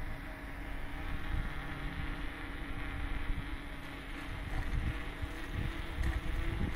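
Wind rumbling irregularly on the microphone, with a faint steady low hum underneath.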